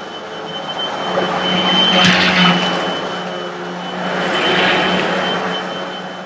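Eureka The Boss SmartVac upright vacuum cleaner running, a steady high motor whine over a low hum, its sound swelling twice.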